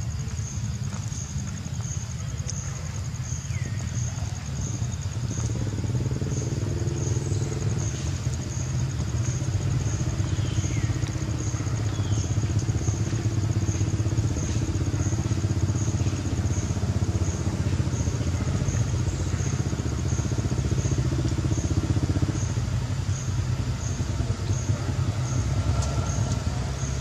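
A motor vehicle engine running steadily as a low rumble. It grows fuller and a little louder from about five seconds in until a few seconds before the end, then eases back. A faint high chirp repeats at an even pace throughout.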